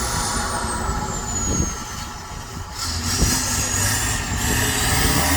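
Dump truck engine running steadily, with a few short knocks.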